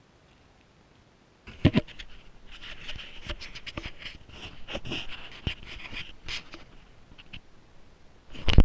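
Action camera being picked up and handled: hand rubbing and scraping on the housing, with several knocks, after a second and a half of near silence. A loud thump comes near the end.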